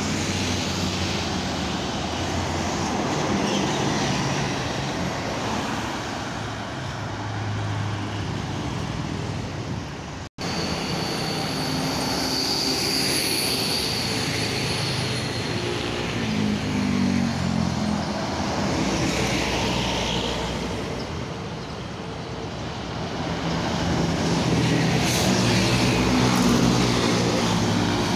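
Roadside highway traffic: cars, motorbikes and intercity buses passing, their engine and tyre noise swelling and fading as each goes by. A large bus passing close near the end is the loudest part. The sound cuts out for an instant about a third of the way in.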